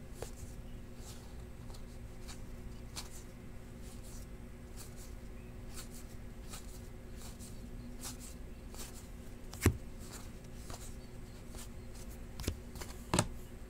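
Panini Classics football trading cards being thumbed off a hand-held stack one at a time, each card giving a short flick or snap, about one to two a second, with a sharper snap near the middle. A low steady hum sits beneath.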